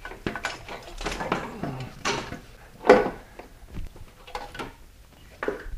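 Clunks and scrapes of a metal intake manifold being handled and lifted off the top of the engine: a run of separate knocks and scrapes, the loudest about three seconds in.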